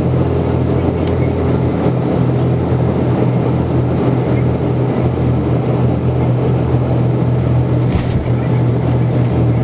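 Cabin drone of an Embraer EMB 120 Brasilia's Pratt & Whitney Canada PW118 turboprop engines and propellers during the landing roll: a loud, steady hum with a low propeller tone under a rushing noise. A light click about eight seconds in.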